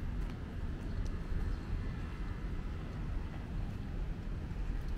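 Steady low rumble of road traffic from a street alongside, with no single vehicle standing out.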